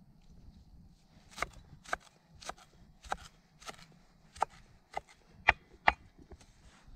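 Cleaver chopping fresh leafy herbs on a wooden cutting board: about nine sharp knocks at a slow, even pace, starting about a second in. The last two are the loudest.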